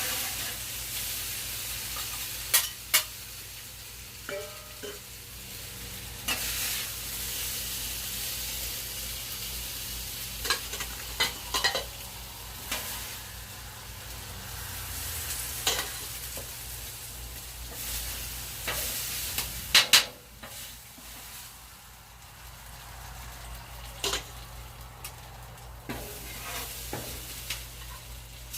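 Chicken sizzling in a frying pan as it is stirred, with a utensil knocking against the pan now and then, loudest in a quick double knock about two-thirds of the way through. After that the sizzle grows quieter.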